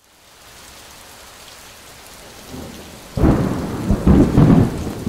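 Steady rain fading in, then a sudden loud thunderclap about three seconds in that rumbles on with several surges.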